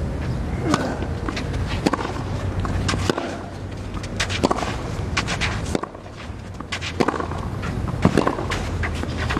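Tennis ball struck back and forth with racquets in a baseline rally on a clay court, a sharp pop about every second.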